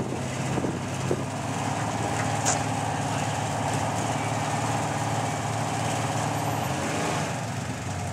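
Engine of a heavily modified second-generation Toyota pickup running steadily as the truck creeps along on a taut winch line, with a higher steady whine through the middle and a sharp click about two and a half seconds in.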